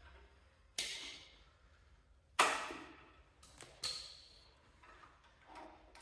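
Metal parts and hand tools clinking against a Cub Cadet garden tractor's engine as its throttle linkage is fitted by hand: a few sharp clicks and knocks, each dying away quickly. The loudest comes about two and a half seconds in, and one near four seconds has a short ringing ping, followed by fainter taps.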